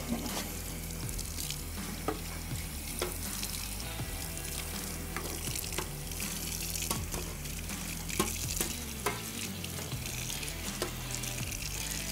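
Tap water running into a sink as dishes are washed by hand, a steady hiss broken by scattered clinks and knocks of crockery and utensils.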